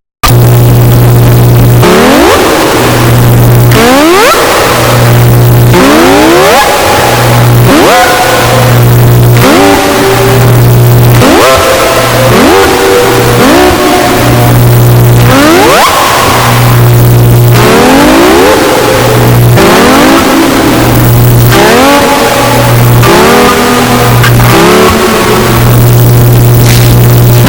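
Distorted, very loud meme sound effects: a rising, revving-like sweep repeats about every one and a half to two seconds over a low hum that keeps cutting in and out.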